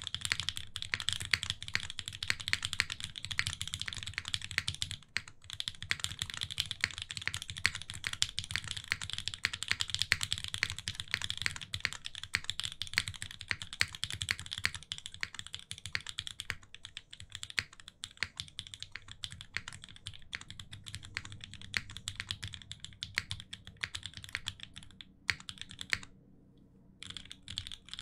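Typing on a Unikorn custom mechanical keyboard with lubed Banana Split linear switches on an aluminium plate in a gummy O-ring mount, with GMK keycaps: a rapid, continuous run of keystrokes. It pauses briefly about five seconds in, thins out in the second half, and stops for about a second near the end.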